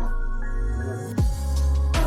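Electronic background music with a heavy bass and a beat.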